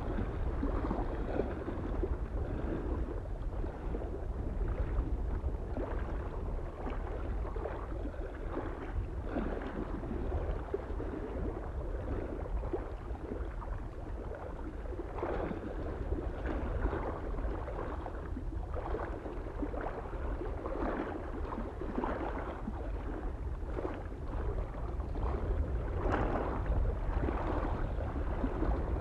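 Small waves lapping and splashing irregularly against a lake shore, over a steady low rumble of wind.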